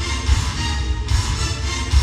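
Loud music with heavy bass, the show's accompanying soundtrack played over loudspeakers.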